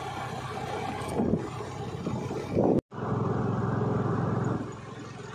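Steady engine and road noise from a moving road vehicle. About halfway through, the sound cuts out for an instant at an edit and comes back as a steadier engine hum that eases off near the end.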